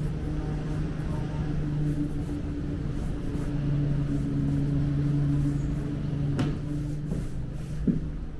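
Steady mechanical hum over a low rumble, as heard riding inside a moving vehicle. There is a sharp click about six seconds in and a short knock near the end.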